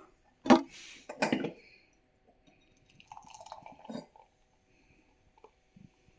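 A Steam Whistle beer opened with a sharp crack and a short hiss, a second sharp sound just after, then beer poured into a glass tankard for about a second.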